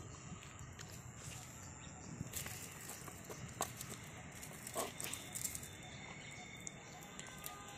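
Quiet rural outdoor ambience with scattered faint short clicks and a few brief bird calls.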